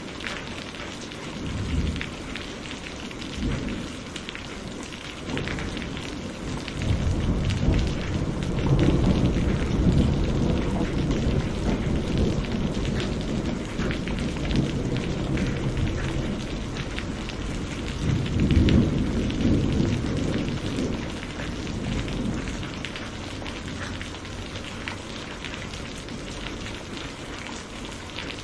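Steady rain with many individual drops pattering, and thunder rumbling low underneath: a long rumble swells up about seven seconds in and lasts several seconds, and a second, shorter one comes about eighteen seconds in.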